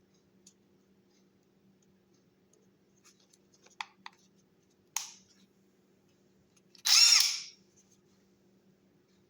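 A few sharp clicks from the BS-2 brushless cordless impact wrench's switches, then, about seven seconds in, its motor whirs up and back down in a short burst of under a second, the pitch rising and falling. A faint low hum runs underneath.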